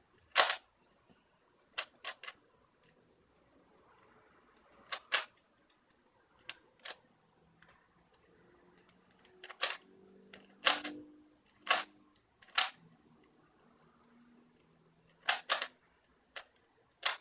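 Rubik's cube clacking as its layers are snapped round during speed-solving: sharp, irregular clicks, some in quick pairs, with quiet gaps between.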